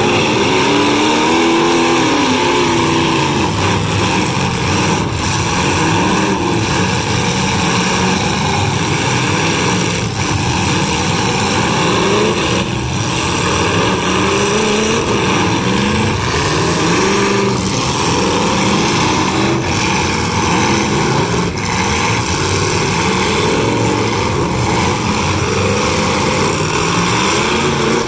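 Several demolition derby cars' engines revving hard together in a loud, continuous din, their pitch rising and falling again and again, with a few bangs as the cars ram each other.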